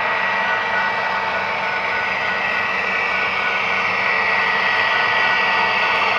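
HO scale model diesel locomotives running light, a steady whirring drone with high whining tones, growing slightly louder about four seconds in as the engines come nearer.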